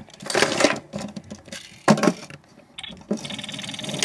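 Fujifilm FinePix S4400 bridge camera shooting a high-speed Top 40 burst: a rapid, even run of shutter clicks, starting about three seconds in after a few handling knocks on the camera.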